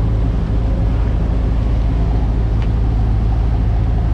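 A sportfishing boat's inboard engines running with a steady low drone while trolling, over the rushing of the wake.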